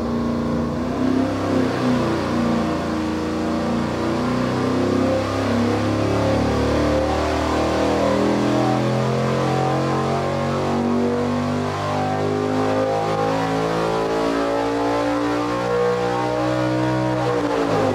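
Big-block Chevrolet V8 of about 477 cubic inches, with a 268/272 split-duration camshaft, running a wide-open-throttle dyno pull. The engine note climbs steadily in pitch as it sweeps up to about 7,000 rpm.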